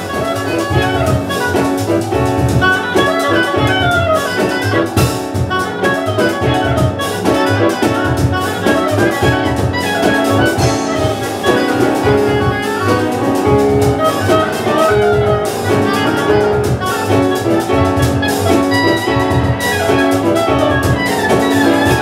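Up-tempo live jazz: an oboe playing fast runs of notes over percussion, double bass and piano.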